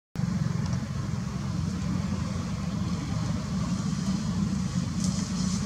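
A steady low rumble with no clear pitch, with a few faint high ticks near the end.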